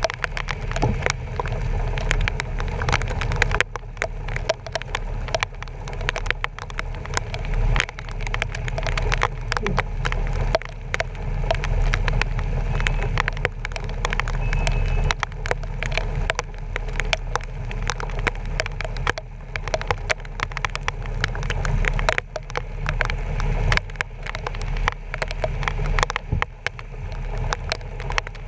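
Heavy rain striking a truck's bumper-mounted GoPro in a dense crackle of drops, over the steady low rumble of the truck driving.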